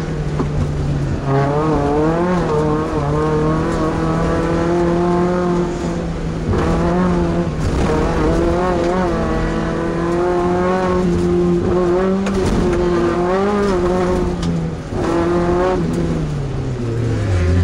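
Class 2 off-road race truck's engine running hard, its revs wavering up and down continuously. There is a brief dip about fifteen seconds in, and the pitch drops near the end.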